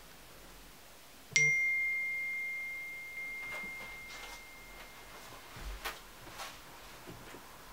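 A single bright bell-like ding with a sharp start, ringing on one high note and fading away over about three seconds. A few soft footsteps follow.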